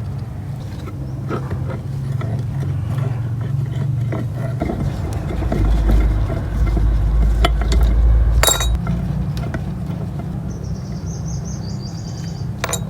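A motor running with a steady low hum that deepens and grows louder for a few seconds in the middle, with a few sharp metallic clicks.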